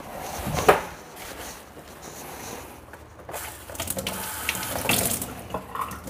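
A wad of wet tissue being prepared for use as a dust catcher under a drill hole: a sharp click under a second in, then irregular noise that grows louder over the last few seconds.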